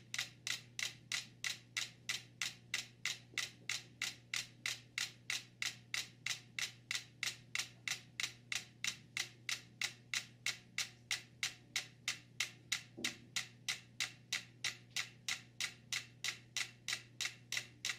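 Five small mechanical metronomes ticking in unison, a single sharp click about three times a second. They have synchronized through the board rolling on the cans beneath them.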